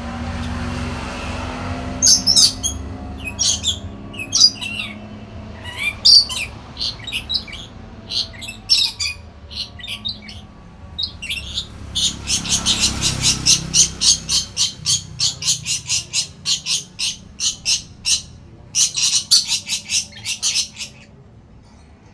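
Lory (nuri parrot) calling: scattered sharp chirps and squawks, then from about halfway a fast run of short, high calls, about three a second, lasting some nine seconds.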